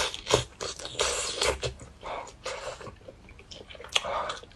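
Close-miked eating sounds: a person sucking in and chewing strands of roast chicken, with a run of irregular wet smacks and mouth clicks.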